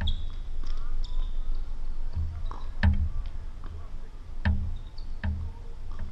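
Tennis ball being played in a rally: four sharp hits, racket strikes or bounces, about one to two seconds apart, each with a low thump.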